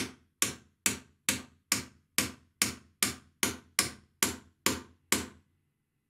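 Claw hammer tapping a steel hinge pin down into a door hinge to seat it: about a dozen quick, evenly spaced metal-on-metal strikes, a little over two a second, each with a short ring, stopping near the end.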